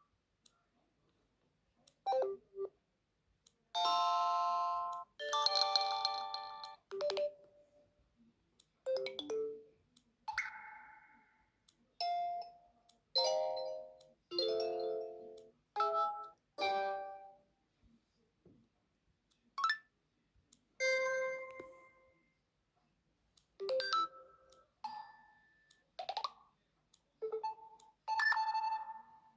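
Built-in ringtones of an Alcatel PIXI 4 (5) smartphone, previewed one after another: about fifteen short chimes and jingles, each a second or less, separated by short gaps.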